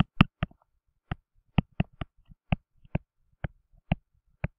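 Stylus tip clicking and tapping on a tablet screen during handwriting: a series of sharp, irregular clicks, about three a second.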